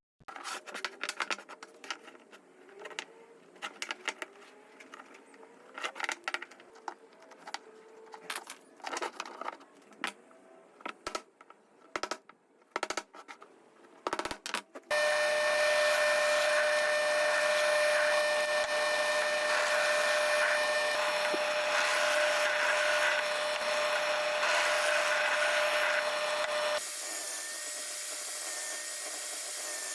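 Scattered clicks and knocks of hand work on wood. About halfway through, a power tool starts suddenly and runs with a steady whine, with wood being worked. It drops to a lower level a few seconds before the end and keeps running.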